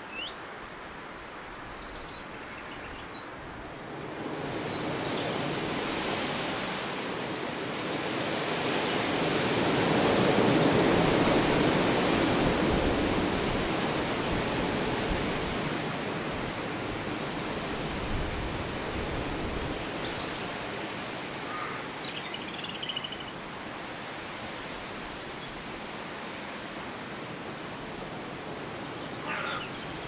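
Sparse, short, high bird chirps and a brief trill over a broad outdoor rushing noise that swells from about four seconds in, peaks around ten to twelve seconds and slowly fades.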